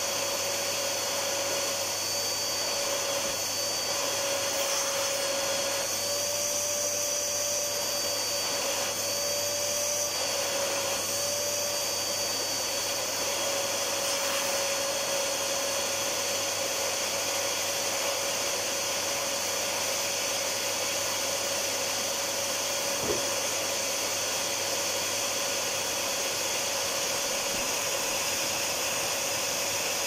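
Heavy-duty drum vacuum cleaner, model 9800YJ, running continuously: a steady rush of air under a constant motor whine, with one small click about three-quarters of the way through.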